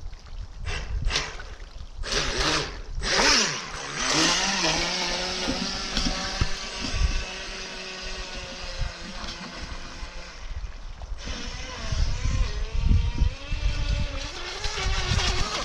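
RC model speedboat's motor: a few short throttle blips, then it winds up into a steady high whine at speed that fades as the boat runs away across the lake. Wind rumbles on the microphone near the end.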